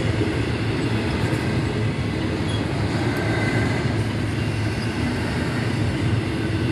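Double-stack intermodal freight train rolling slowly past: a steady rumble of the well cars' wheels on the rails.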